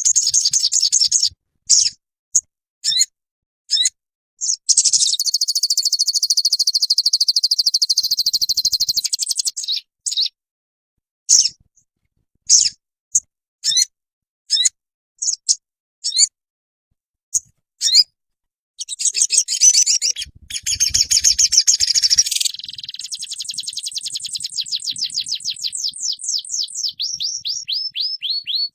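Sogon songbird tutor recording: loud, high-pitched song of quick chirps and trills. A long buzzy trill comes early, then a string of separate sharp chirps with silent gaps between them, and near the end a fast run of repeated notes that drifts slightly lower in pitch.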